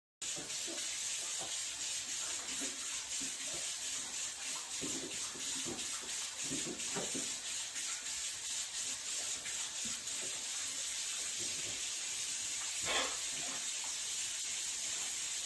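Steady rushing noise of running water, with a brief louder sound near the end.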